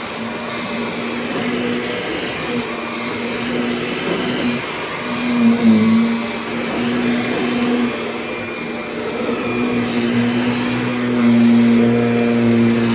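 Kirby Diamond Edition upright vacuum running on high speed: a steady motor hum over fan noise, wavering briefly about five and a half seconds in.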